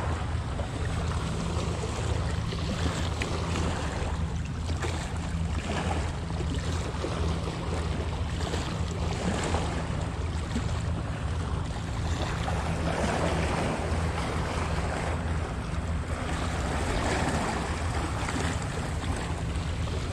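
Wind buffeting the microphone in a steady low rumble, over small sea waves washing and splashing against shoreline rocks in slow swells.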